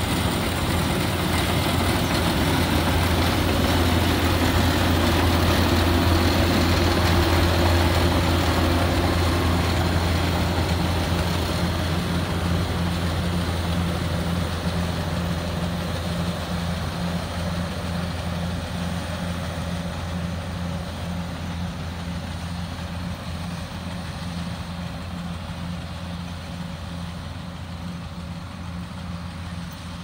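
Kubota DC-70 combine harvester's diesel engine running steadily with a low hum while the machine cuts and threshes rice, loudest about six to eight seconds in and then fading as it moves away.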